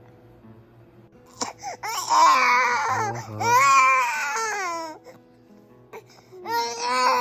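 Baby crying in two bouts, the first starting about a second and a half in and the second near the end: the fussy cry of a baby getting sleepy. Soft background music runs underneath.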